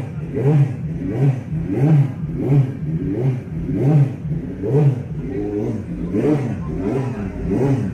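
A racing superbike engine revved in quick repeated throttle blips, about two a second, its pitch rising and falling with each blip.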